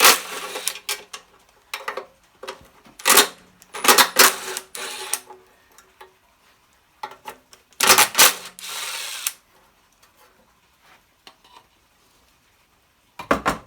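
Hand tools working on the 10mm bolts of a small generator's recoil starter: metal clicking and clatter in several short bursts, around the start, the middle and again near the end.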